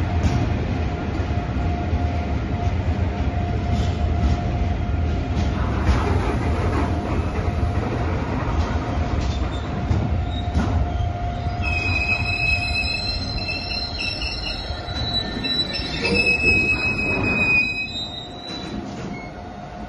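Intermodal freight train of container and tank-container wagons running past on the track: a steady low rumble with a constant hum. From a little past halfway, high metallic squealing from the wagons lasts about six seconds, and the sound fades near the end.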